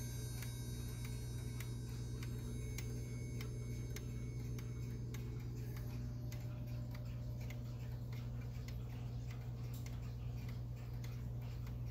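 Howard Miller 'Jennison' triple-chime wall clock's replacement mechanical movement ticking steadily as its pendulum swings, over a steady low hum.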